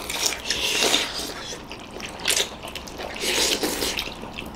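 Several people slurping noodles, wet sucking slurps that come in a few bursts, with the longest in the first second and another a little after three seconds in.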